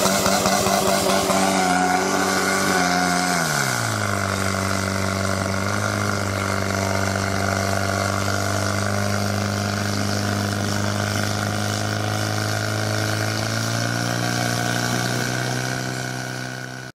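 Portable fire pump engine running at high revs, then dropping in pitch about three and a half seconds in and settling into a steady run as it pumps water out through the hoses to the spray at the targets; the revs rise a little near the end.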